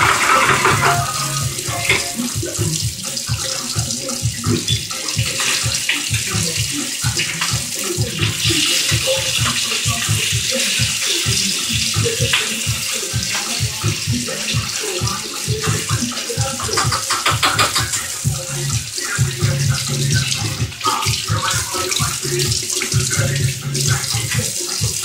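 Kitchen tap running steadily into a sink while something is washed up with a sponge.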